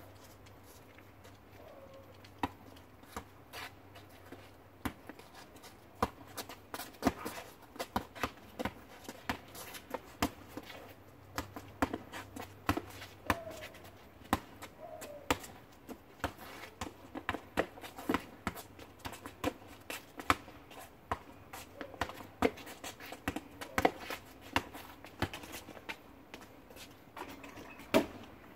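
Basketball bouncing on an asphalt driveway as it is dribbled, in irregular runs of sharp bounces, about one or two a second, some much louder than the rest.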